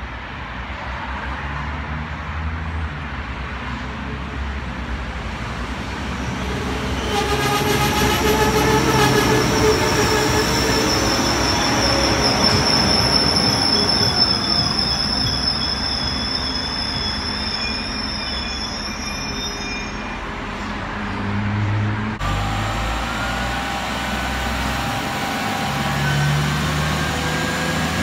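PESA SA133 diesel multiple unit approaching and braking into a station. Its brakes give a loud, high-pitched squeal of several tones for over ten seconds. The squeal fades to a low engine rumble with a faint rising whine as the train draws in.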